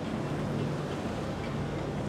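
Three Mercury 350 outboard engines running at low speed as the boat passes, a steady low hum under a wash of wind and water noise.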